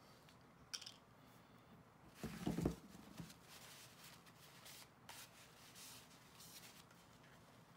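Faint rustling and rubbing of a paper tissue wiped along a wooden pool cue shaft and its new leather tip, with a single dull knock about two and a half seconds in as the loudest sound.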